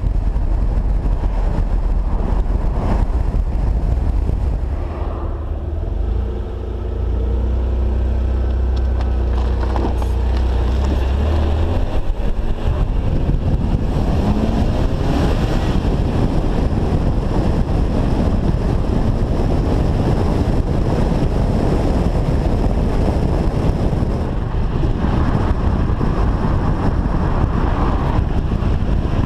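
Car driving on a country road, heard from a camera mounted on its side: a low engine drone at steady revs, giving way about twelve seconds in to a steady rush of wind on the microphone and tyre noise.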